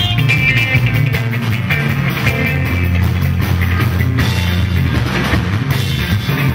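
Live band music: electric guitar lines over a bass line and a drum kit keeping a steady beat.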